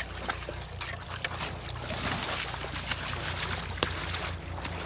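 Creek water running and splashing as two redbone coonhounds thrash in the shallows over a caught raccoon, with many short sharp splashes and one sharper click about four seconds in.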